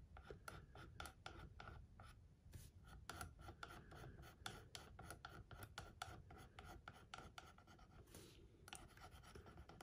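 Faint, quick, irregular scratching of a screwdriver tip scraping dried rust-effect weathering mix off the side panel of an OO gauge model mineral wagon, chipping it back to the bare body.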